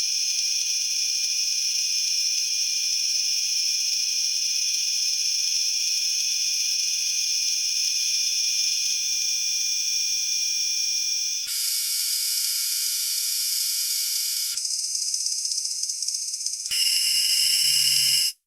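Cicadas buzzing in a continuous high-pitched drone. The chorus changes character abruptly three times, about 11 s, 15 s and 17 s in, then stops suddenly.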